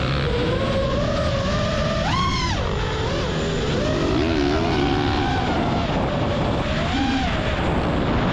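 FPV racing drone's motors and propellers whining under a steady rush of air, the pitch swinging up and down with the throttle. It swoops sharply up and back down about two seconds in, and rises again briefly near the end.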